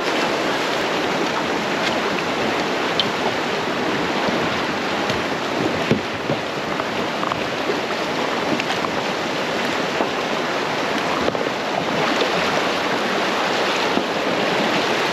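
Creek rapids rushing steadily over rocks, with a few faint clicks and splashes from the kayak and paddle.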